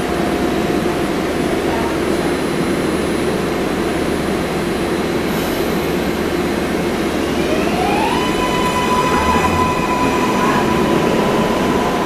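MARTA rapid-transit train at a station platform, a steady rumble and hiss, then about two-thirds of the way in the electric traction motors start a whine that rises in pitch and levels off as the train begins to pull out.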